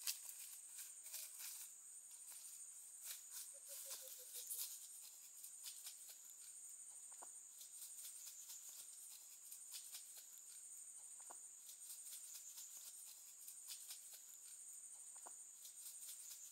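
Faint forest ambience: a steady high-pitched insect drone with a light pulse, with a few faint short calls and soft clicks now and then.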